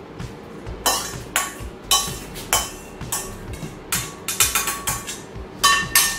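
Metal spoon scraping and clinking against a stainless steel bowl while the last of a salad is spooned out of it: about a dozen sharp, ringing metallic strikes, roughly two a second, starting about a second in.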